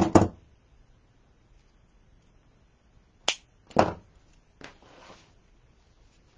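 A few sharp knocks at the very start, then two sharp clicks about half a second apart around three seconds in, and a short rustle about a second later: small craft pieces being picked up and set down on a work table.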